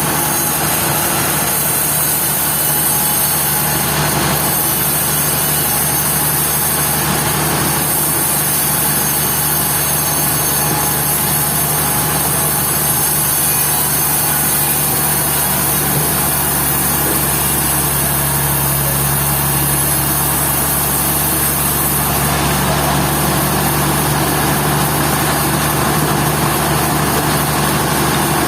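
Sawmill machinery running steadily: a continuous engine or motor hum with a high hiss, its low tone and the hiss shifting a little between about 17 and 22 seconds in.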